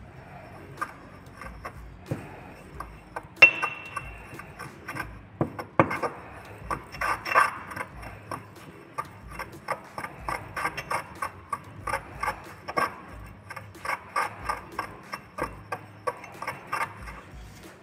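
Porcelain pestle grinding and scraping round a porcelain mortar in quick, uneven gritty strokes, working precipitated sulfur powder into a wet mixture until it is even. One sharp ringing clink comes about three and a half seconds in.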